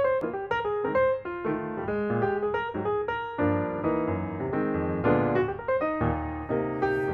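Background piano music: a melody of quick, ringing notes over lower bass notes.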